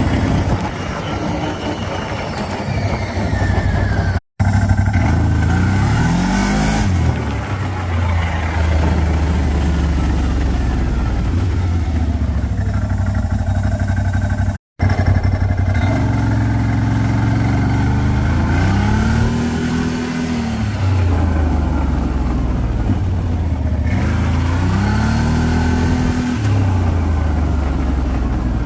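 CFMoto CForce 1000 ATV's V-twin engine running, rising and falling in revs several times as it slows under engine braking, with an extra grinding sound on engine braking.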